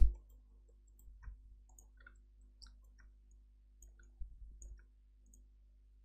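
Faint, scattered mouse clicks, a few slightly stronger ones about a second in and again past the four-second mark, over a low steady hum of room tone.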